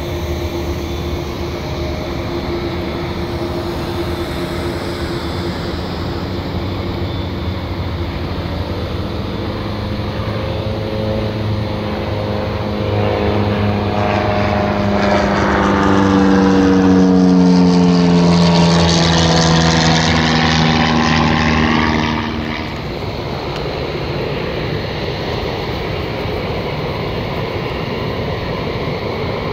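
Boeing 787 Dreamliner's twin turbofan engines at taxi power as the jet rolls past close by: a steady jet whine that swells and slides down in pitch as it passes. It is loudest just past the middle and eases off about three-quarters of the way through.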